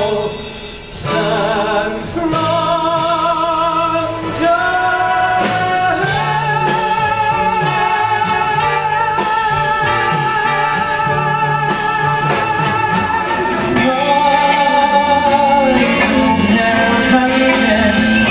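Singing with vibrato over musical accompaniment, the voice holding long sustained notes, including one of about seven seconds near the middle.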